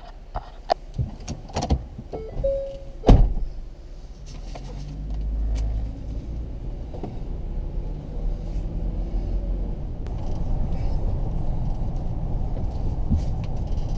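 A van rolls slowly along a road, heard from inside the cab as a steady low engine and tyre rumble. Before it settles, several small knocks and clicks, a brief steady tone and one loud thump come about three seconds in.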